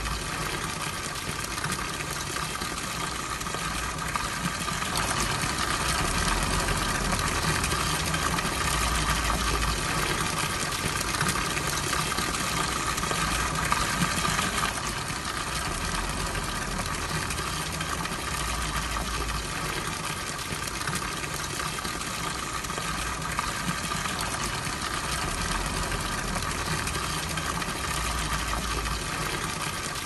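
Tabletop cascade fountain: water trickling and splashing steadily from pool to pool down its small tiers, with a low hum underneath.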